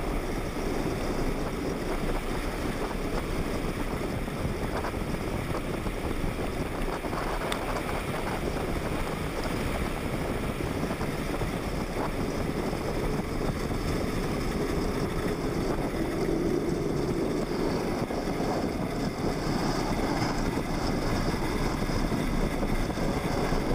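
Steady wind rushing over the microphone with the rumble of a pedal go-kart's hard plastic wheels rolling fast on asphalt as it coasts downhill, growing a little louder in the second half.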